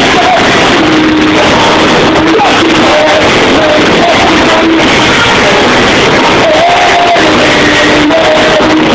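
Live rock band playing, with a lead singer holding and sliding between sung notes over guitars and drums; the recording is very loud and even throughout.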